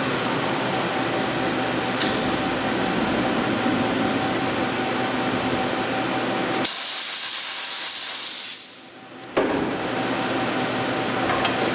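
Hurco TM8i CNC lathe humming steadily with a few steady tones. About seven seconds in, a loud hiss lasting about two seconds cuts in suddenly and stops. After a brief lull, a sharp click brings the hum back.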